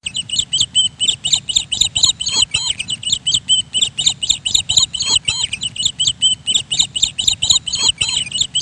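Small birds chirping in quick, continuous succession, several high chirps a second.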